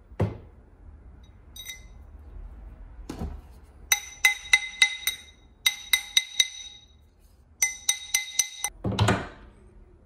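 Hammer tapping a platinum wedding band on a steel ring mandrel, in three quick runs of about five or six ringing metallic strikes each, truing the band round. Duller knocks come at the start, about three seconds in, and near the end.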